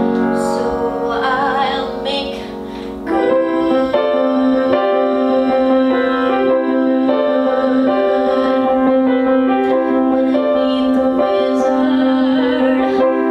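A woman singing a show tune with vibrato over a piano accompaniment. The accompaniment comes in fuller and louder about three seconds in, with sustained chords.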